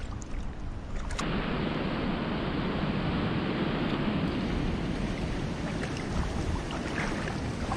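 Steady rushing wash of sea water over the rocky shore, starting suddenly about a second in.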